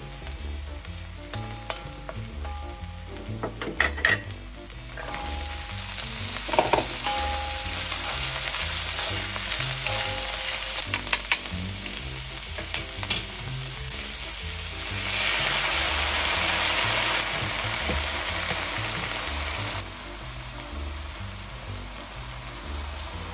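Oil sizzling in a wok as chopped garlic and then garlic scapes are stir-fried, with stirring scrapes and a few sharp knocks. The sizzle is loudest for a few seconds past the middle.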